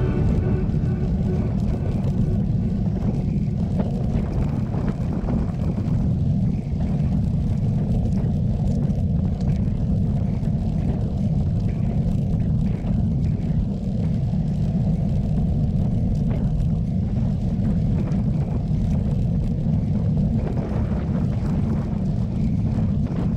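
Strong wind buffeting a GoPro's microphone on a moving bicycle: a steady, low rumble.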